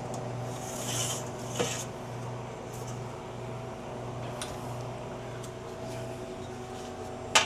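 Crisp rustling and light clicks of dry, brittle freeze-dried sweet potato slices being handled on a tray, most of it in the first couple of seconds, over a steady electrical hum.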